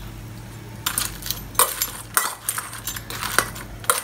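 Metal spoon clinking and scraping against a stainless steel mixing bowl while fried chicken wings are tossed in sauce. It starts about a second in as a run of irregular knocks and scrapes.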